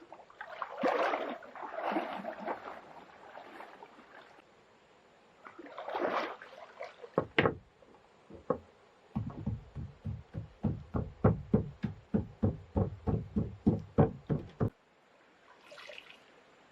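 Wet river mud being worked by hand into a hollowed log trough: soft wet scooping and smearing sounds, then two separate knocks, then a quick run of about twenty pats, roughly three or four a second, as the mud is packed down into the log. The mud is being packed in as a refractory lining for a fire pit.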